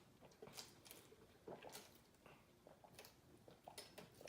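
Near silence, with a few faint, short mouth clicks from eating or drinking close to the microphone.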